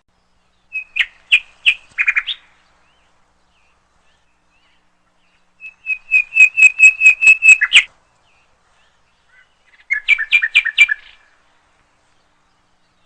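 A songbird singing three short phrases of rapid repeated notes, with pauses of a few seconds between them; the middle phrase is the longest, a quick trill of about a dozen notes.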